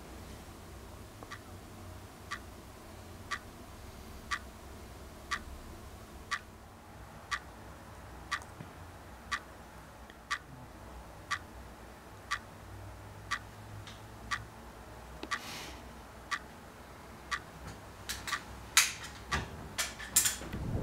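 Quartz wall clock ticking about once a second. In the last few seconds the ticks come louder and quicker, about two a second.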